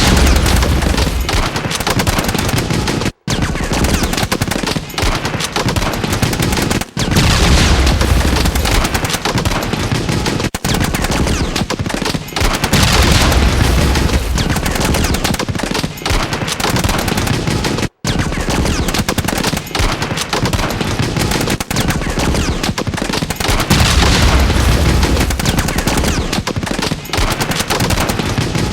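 Sustained rapid automatic gunfire, machine-gun style, dense and almost unbroken, with swells of low rumble every few seconds. It cuts out to dead silence for an instant twice, about three seconds in and about eighteen seconds in.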